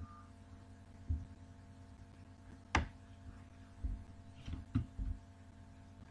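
Quiet, steady low electrical hum with a few dull thumps and one sharp click about three seconds in, handling or tapping noise from the recording device.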